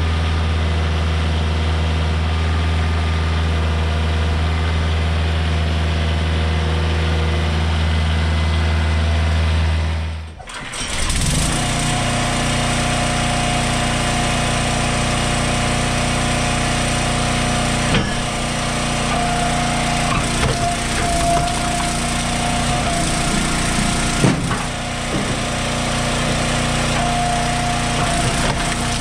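A tractor engine idling with a steady low drone; about ten seconds in it cuts off and the small gasoline engine of an Eastonmade Ultra wood splitter takes over, running steadily with a tone that comes and goes and a few sharp knocks as logs are split.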